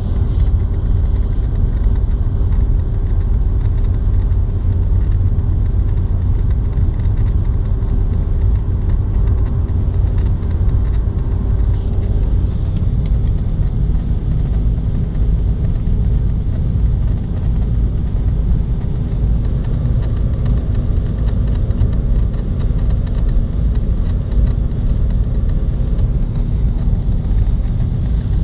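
Cabin noise of a BMW E46 330i being driven: steady engine and road rumble, with a fast, irregular clicking from the steering column area behind the instrument cluster, the unidentified fault noise. The engine note shifts down about halfway through.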